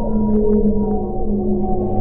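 Whale song: long drawn-out calls held and sliding slowly down in pitch, over a steady low drone and deep underwater rumble. A deeper hum comes in near the end.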